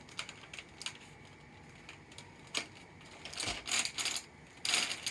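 Plastic clicking and rattling from a Nerf blaster being handled and fitted together: scattered single clicks, then a few longer rattling bursts in the second half.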